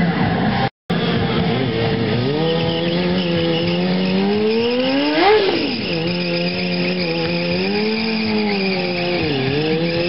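Sport motorcycle engine held at high revs while its rear tyre spins and squeals on asphalt, the pitch swinging with the throttle and peaking sharply about five seconds in. The sound cuts out for a split second just under a second in.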